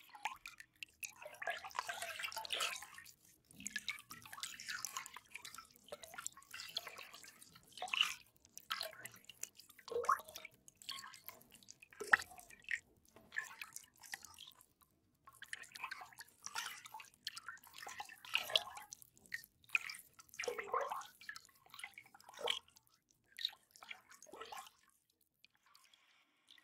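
Water drops falling into water, dripping and splashing irregularly in short bursts, with one sharp plink about twelve seconds in.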